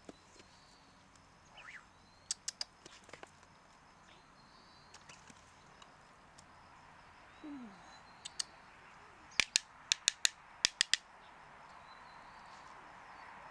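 Sharp clicks and taps of a hard clam shell and a knife being handled: a few single clicks early, then a quick run of about eight loud clicks about two-thirds of the way in.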